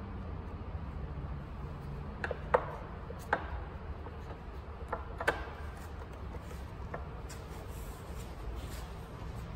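A few sharp clicks and light knocks as parts are handled on the front of a Toyota 2JZ-GTE engine, the loudest about two and a half seconds in and the last about five seconds in, over a steady low hum.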